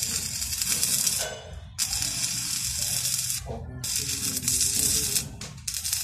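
Stick-welding arc crackling and hissing as a coated electrode rod welds steel square tubing. The arc breaks off briefly and restarts several times.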